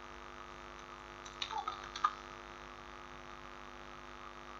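Steady electrical mains hum with its stacked overtones, picked up by the recording microphone. A few faint short sounds come about one and a half to two seconds in.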